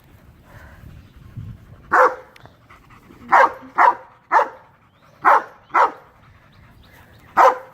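Dog barking, seven short sharp barks at uneven intervals, some in quick pairs.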